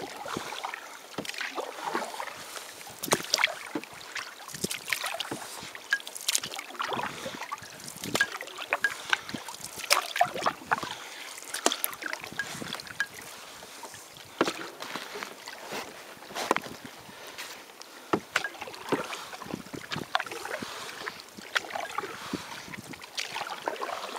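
Water splashing and slapping against the hull of a canoe as it is paddled across choppy water, in short irregular splashes.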